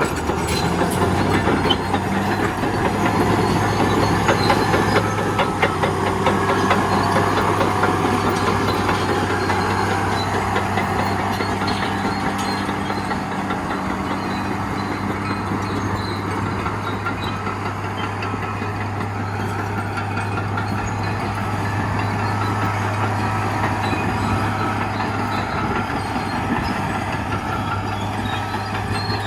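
Railroad cars rolling past, clattering on the rails, more busily in the first half, over the steady hum of an idling diesel engine.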